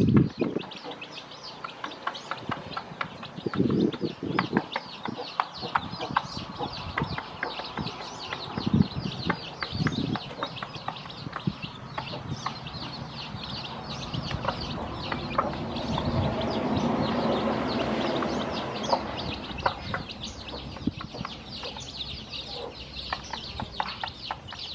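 Newly hatched chicks peeping over and over in high short calls, with a mother hen giving a few low clucks. A low rushing sound swells and fades in the middle.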